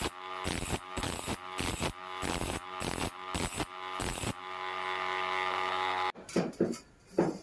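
Hand file rasping across the teeth of a hand saw in quick strokes, about two to three a second, the steel blade ringing with each stroke. The strokes stop about four seconds in and leave a ringing tone, followed by a few knocks near the end.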